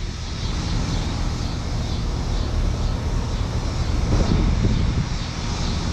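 2008 Carrier Performance Series 2-ton heat pump outdoor unit running steadily: a low hum with an even hiss above it, swelling briefly about four seconds in.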